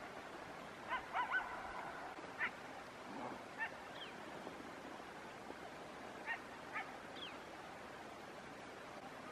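Distant wild canid giving short, high yelping barks: a quick run of three about a second in, then single calls and pairs scattered through, over a steady background hiss.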